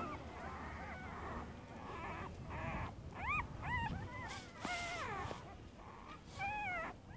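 Newborn pitbull puppies whimpering: short, high, rising-and-falling squeaky cries every second or so, clearest about three seconds in, around five seconds, and again near the end.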